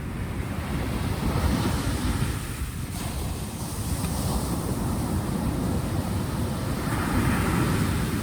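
Ocean waves surging and washing in over a steady low rumble, swelling about two seconds in and again near the end.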